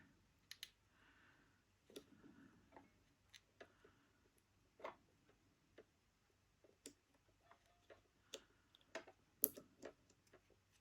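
Faint, scattered clicks and taps of small parts being handled and fitted inside an opened electronic device, the sharpest about nine and a half seconds in.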